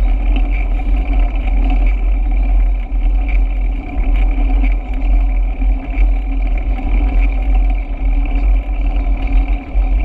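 Wind buffeting the microphone of a camera on a moving bicycle: a loud, uneven low rumble.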